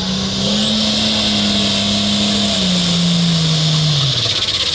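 Turbocharged diesel engine of a Limited Pro Stock pulling tractor at high revs under load, with a loud high turbo whine and hiss. The engine note steps up about half a second in, then drops twice near the end.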